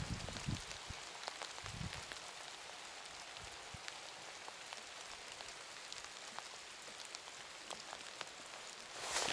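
Light rain pattering on the snow and bare branches: a steady faint hiss with many scattered small ticks.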